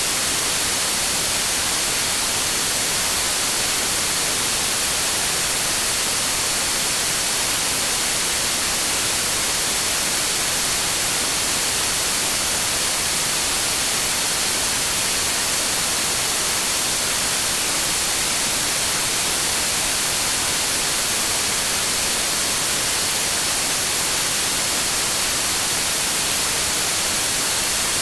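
Continuous synthetic noise, a steady unbroken hiss weighted toward the high end, with a faint steady high-pitched tone held within it.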